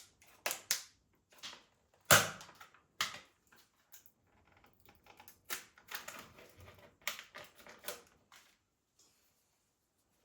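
A run of separate sharp clicks and knocks of small hard objects being handled, the loudest about two seconds in, with lighter taps in between.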